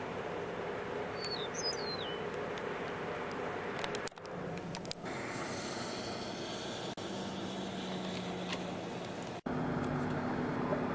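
Steady outdoor background noise with a faint low hum, broken off abruptly by several edit cuts. A short, high gliding chirp comes about a second and a half in.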